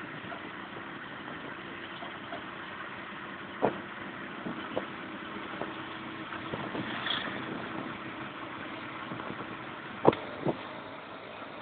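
Auto-rickshaw engine running steadily while riding along, with a few sharp knocks; the loudest two come close together near the end.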